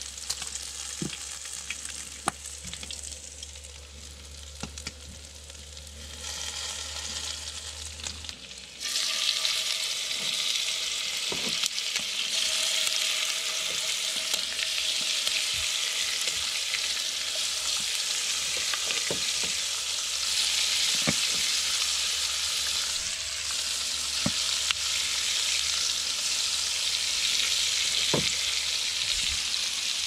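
Chicken thighs frying in a hot skillet on a camp stove: a faint sizzle at first, jumping to a loud, steady sizzle about nine seconds in as the chicken goes into the pan. A few light clicks of utensils against the pan.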